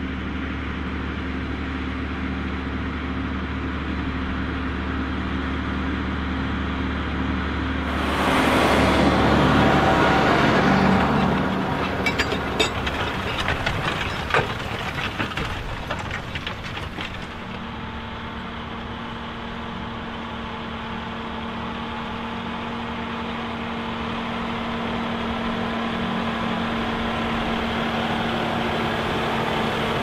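Large John Deere tractor engines running under load while pulling reversible ploughs. About eight seconds in one passes close and loud for a few seconds, followed by a few seconds of clicks and cracks as the plough turns the soil, then a steady engine drone that slowly grows louder.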